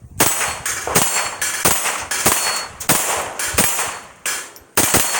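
Semi-automatic .22 LR shots from an AK rifle fitted with a Grizzly rimfire conversion kit, eight in steady succession about one every 0.7 seconds, a few followed by the ring of a steel target being hit.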